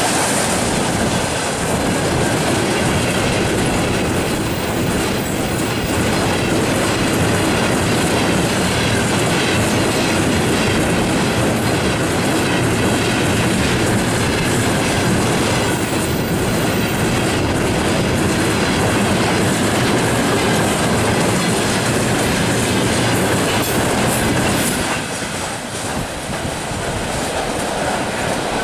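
Freight train rolling past at speed, its wagon wheels clattering steadily over the rail joints; the noise eases a little near the end.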